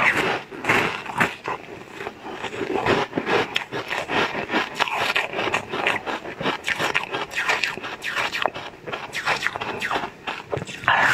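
Close-miked eating: a pink molded sweet being bitten and chewed, a steady run of small crackling and scraping mouth sounds, with louder bites near the start and near the end.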